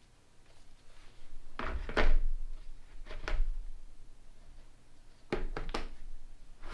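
Knocks and clunks from a motorcycle chain breaker tool being worked on the chain and handled, in three short clusters, with a low rumble under each.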